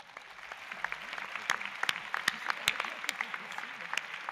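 Audience applauding: dense clapping that builds over the first second, then holds steady.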